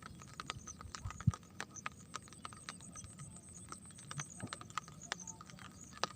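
Raindrops tapping irregularly on a hard surface: scattered light ticks, several a second, over a faint steady hiss.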